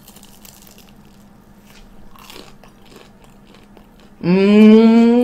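A bite into a fried, crumb-coated Korean mozzarella hot dog with a soft crunch, then quiet closed-mouth chewing. About four seconds in comes a long, loud 'mmm' hum of enjoyment, rising slightly in pitch.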